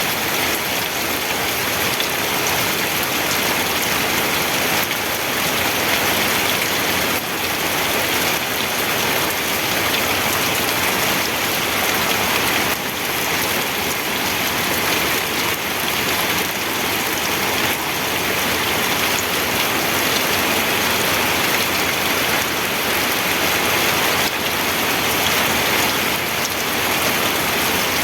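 Steady rain falling and pattering on a surface, an even hiss of drops without a break.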